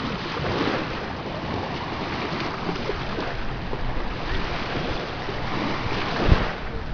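Small surf washing onto a sandy beach, swelling and easing, with wind buffeting the microphone and one low thump near the end.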